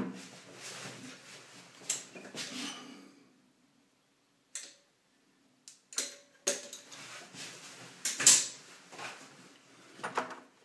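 Caulking gun handled and squeezed against a tiled wall: a series of clicks, knocks and short rustles, the loudest about eight seconds in, with a quiet spell of about two seconds in the middle.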